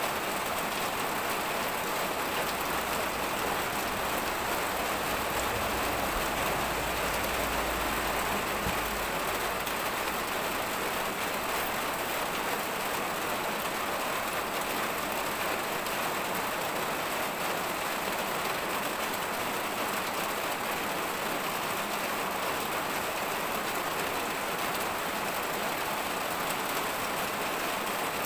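A steady, even rushing hiss that stays unchanged throughout, with no voices.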